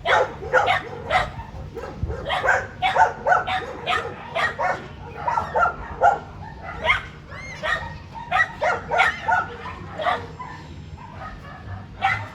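Several dogs barking over one another in quick, irregular short barks, with a few yips and brief whines mixed in.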